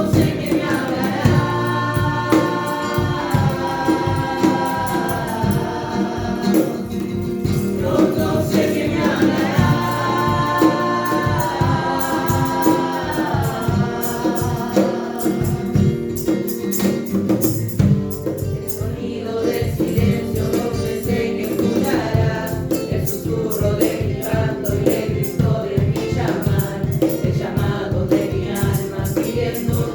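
A group of young voices singing a Christian song together over instrumental backing with a steady rhythmic beat; the voices hold long notes that glide between pitches.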